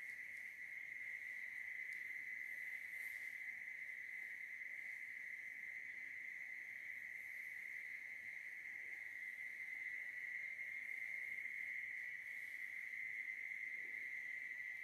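Faint, steady trilling of crickets: one unbroken high-pitched note that never stops.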